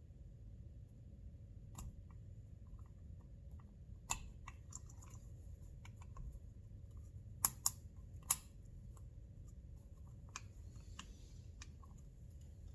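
Scattered light clicks and taps of small chainsaw parts and tools being handled on a bench, with three sharper clicks close together about seven to eight seconds in, over a faint low hum.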